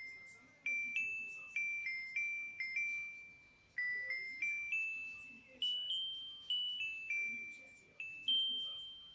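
Siemens S55 mobile phone ringtone: a simple bell-like melody played one note at a time, each note struck and fading, about two to three notes a second in short phrases.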